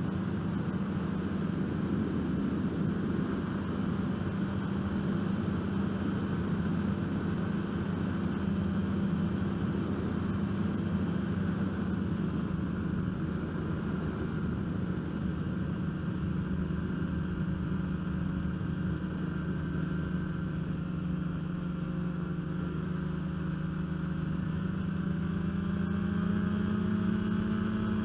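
Kolb Firefly ultralight's two-stroke engine and propeller droning steadily in cruise flight, with wind noise in the open cockpit. The engine note rises slightly near the end.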